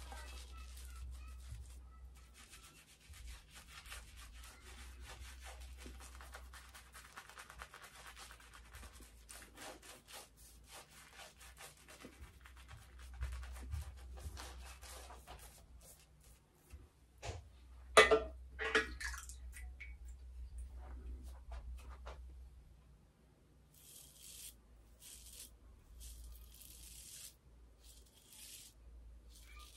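Shaving brush working lather over the beard stubble on the face and neck: a wet scrubbing of quick strokes. About eighteen seconds in comes a brief, louder sound with a pitch to it. Near the end the rubbing gives way to short, separate hissing scrapes.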